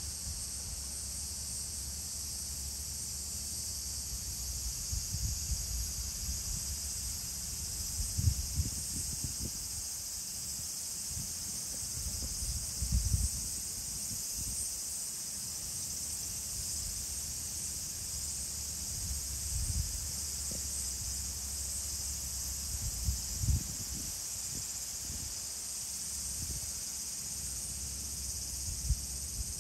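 A steady, high-pitched summer insect chorus, with scattered low rumbling thumps now and then.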